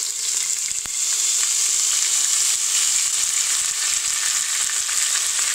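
Ginger-garlic paste sizzling as it fries in hot oil with cumin and mustard seeds: a steady, high frying hiss that grows louder about a second in.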